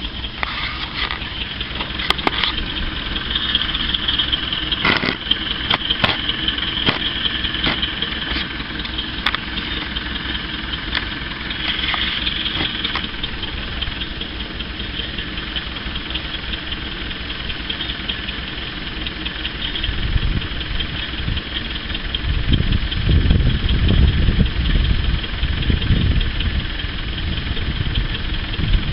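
Heavy-equipment engine running steadily at idle, with a louder, deeper rumble for several seconds from about twenty seconds in as it comes under load. A few sharp knocks in the first ten seconds.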